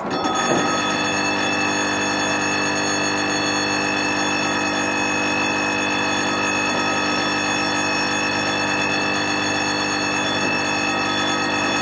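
HO scale model bascule bridge in operation. A steady electric sound made of several held tones starts suddenly as the bridge is triggered and holds even while the span lifts.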